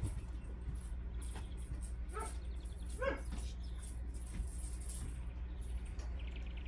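Seven-week-old puppies playing, one giving two short high yips about two and three seconds in, among scattered light clicks and knocks, over a steady low hum.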